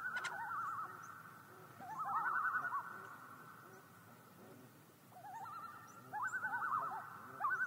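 Common loons giving tremolo calls: rapid, wavering, quavering notes, with two or more birds overlapping. The calls come in bouts, one at the start and another about two seconds in, then a lull before they pick up again near the end.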